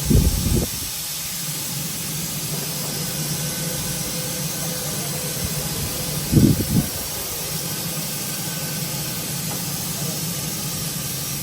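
Steady industrial hum with a hiss over it, from power-plant boiler machinery. Two brief low rumbles break in, one at the start and one about six seconds in.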